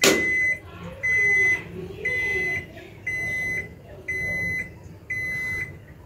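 Haier automatic washing machine's end-of-cycle beeper: six high beeps, about half a second each, one a second, signalling that the spin-only cycle has finished.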